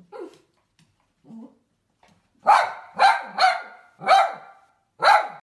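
Small dog barking: a few soft yaps at first, then five loud, sharp barks in quick succession over the last three seconds.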